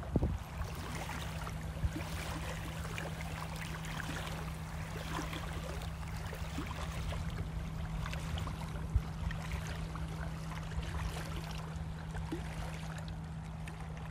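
Gentle wavelets of a calm bay lapping at the shore, a soft irregular patter of tiny splashes and trickles. Underneath runs a steady low hum and a low rumble.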